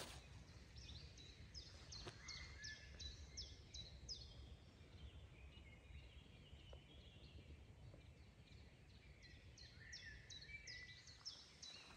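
Faint birdsong: a bird repeats a short, high, falling note a few times a second in two runs, one early and one near the end, with some softer warbling, over faint low background noise.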